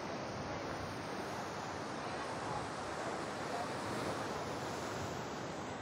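Sea waves breaking and washing over a rocky shore, a steady rushing noise, with wind on the microphone.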